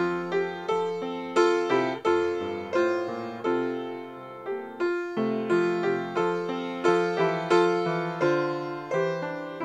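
Solo piano playing, melody notes and chords struck at a steady, moderate pace, each note dying away after it is struck.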